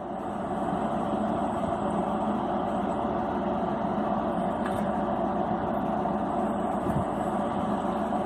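Steady, unchanging background noise with no speech and no distinct events.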